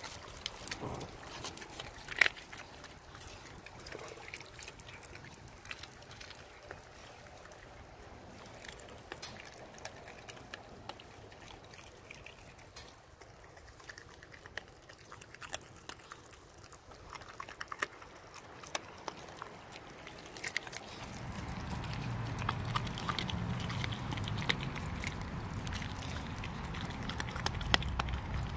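Renascence Bulldogge puppies chewing raw fish: scattered wet clicks and crunches of teeth on flesh and bone. The chewing gets louder and busier for the last several seconds.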